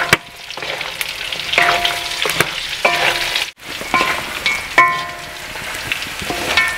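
Pork pieces sizzling steadily as they fry in their own rendered fat in a black pan, stirred with a wooden spatula. Several short ringing clanks come from the pan as it is stirred.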